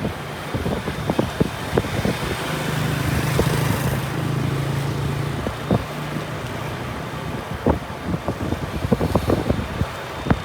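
Road ride with wind buffeting the microphone in irregular thumps, over steady road noise. A vehicle engine's low hum swells from about two seconds in and fades out by about six.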